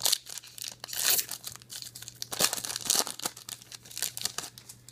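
Foil trading-card pack wrapper crinkling and tearing open, in a string of short crackling rustles, loudest about a second in and again near the middle.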